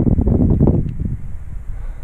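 Wind buffeting the camera's microphone in loud, ragged low gusts that ease off about a second in to a lower steady rumble.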